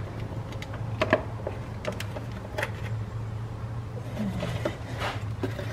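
Scattered light metallic clicks of a wrench working the timing-belt cover bolts on a Subaru 2.5L engine, over a steady low hum.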